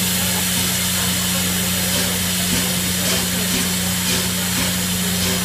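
Steam locomotive, the LNER A4 Pacific 60019 Bittern, standing and venting steam: a steady hiss with a constant low hum underneath.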